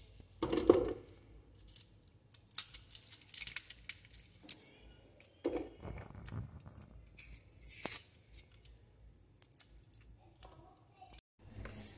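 Kitchen knife scraping and peeling the papery skins off a small onion and garlic cloves, in short irregular scrapes and crackles of tearing skin.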